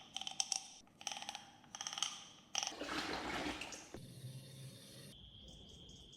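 A series of sharp clinks of hard ceramic ware, each ringing briefly. About two and a half seconds in, a short rush of running water follows. Then comes a low steady hum with a thin high whine.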